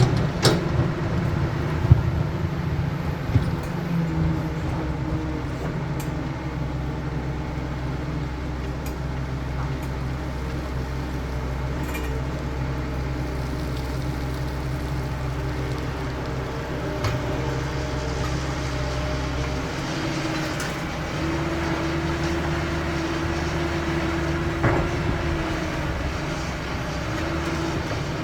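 CAT 320 hydraulic excavator's diesel engine running under load, with the whine of its hydraulics rising and falling as it works and a few sharp knocks, the loudest in the first few seconds.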